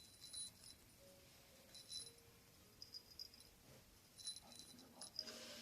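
Faint jingling of a small bell in several short bursts, against near silence.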